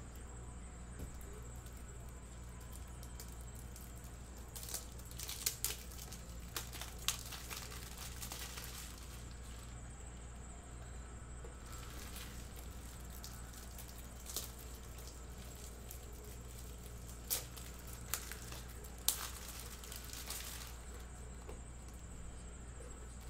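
Trading cards and plastic top loaders being handled on a desk: scattered light clicks and taps, bunched about five to seven seconds in and again around seventeen to nineteen seconds, over a steady low hum.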